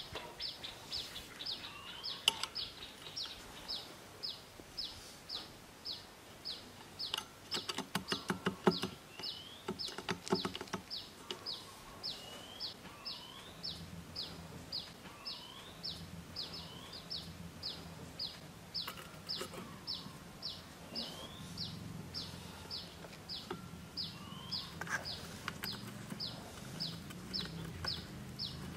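A bird repeating a short, high, falling call about twice a second, with a quick run of sharp clicks about a third of the way in.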